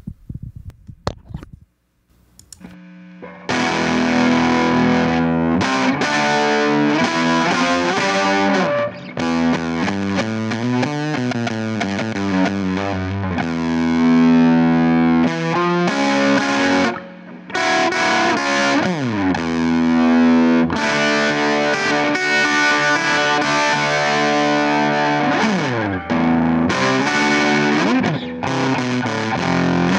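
Electric guitar played through a Neural Amp Modeler capture of a Fender Tweed Champ amp, overdriven and gritty. The playing starts about three and a half seconds in, with a few string bends along the way.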